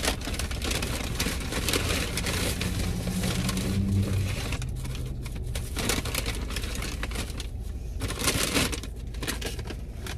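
A paper fast-food bag rustling and crinkling as hands dig through it and then lift it up, in irregular spells of crackle with short pauses.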